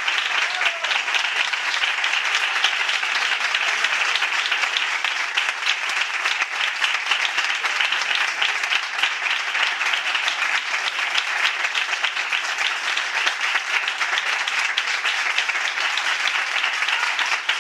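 Audience applauding: dense, steady clapping from many hands that holds an even level throughout.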